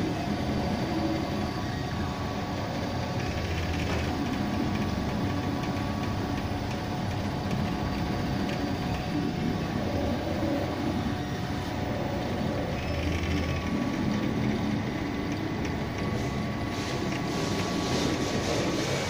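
MINGDA MD-6L large-format 3D printer running a print: its stepper motors whir, the pitch shifting now and then as the fan-cooled print head travels over the part, over a steady machine hum.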